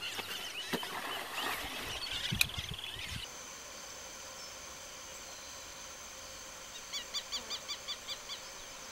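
Birds calling over outdoor ambience, with a few low thumps in the first few seconds. Then a quieter stretch with a steady high buzz, and a bird's quick run of about nine chirps about seven seconds in.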